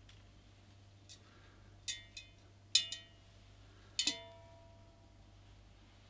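Hard little knocks and clinks against a large glass cylinder vase, about six spread over the first four seconds, the loudest near three and four seconds in, the glass ringing briefly after them.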